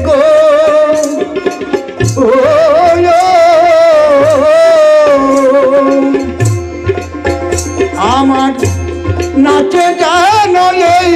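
Baul folk song: a male voice holding long, wavering melismatic notes, accompanied by tabla, harmonium and a plucked dotara.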